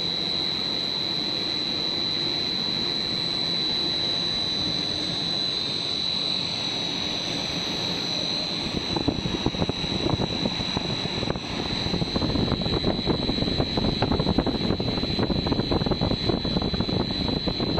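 Single-screw extruder and its electric drive motor running on a pet-chew production line: a steady machine drone with a high, constant whine. About halfway through, rapid irregular clattering of machinery joins in and carries on.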